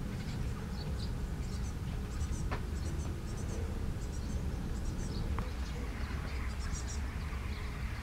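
Great tit fledgling begging for food: many short, high-pitched calls in quick clusters, over a steady low rumble.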